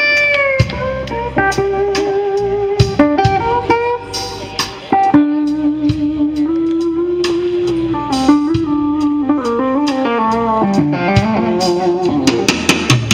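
Live blues band playing loudly through the stage sound system, with a guitar leading in long, bending notes.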